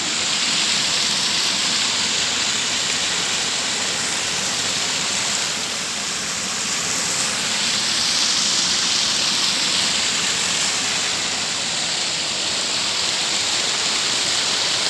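Small waterfall and stream of water rushing over rocks, a steady loud rush.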